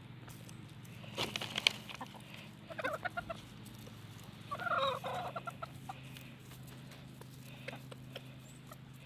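Chickens clucking while feeding on scattered treats: a quick run of short clucks around three seconds in, then one louder, longer cluck just before five seconds, with a few sharp clicks and taps between.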